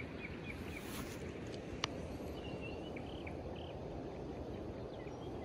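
Steady outdoor background hiss, with a few faint high chirps in the first second and again around the middle, and one sharp click about two seconds in.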